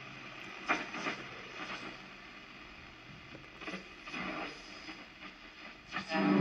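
Blaupunkt Derby 660 transistor radio being tuned between stations: hiss from its speaker with brief snatches of broadcasts, until a station comes in at the very end.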